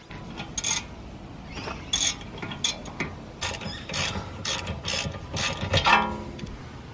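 Hand ratchet wrench clicking in short, uneven runs as a brake caliper mounting bolt is being undone.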